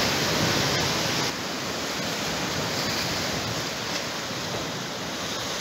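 Sea surf breaking and washing against a rocky shore, a steady rush of waves that drops a little in level about a second in.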